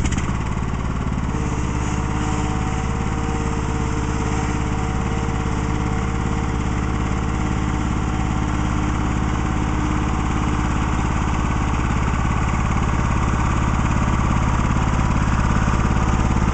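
Cub Cadet LT1042 riding lawn tractor's engine running steadily at an even pitch, growing a little louder toward the end.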